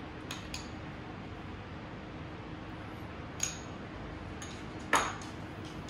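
A few light clicks and clinks of metal utensils against crockery over a steady low room hum, with two quick ticks just after the start and the loudest clink near the end.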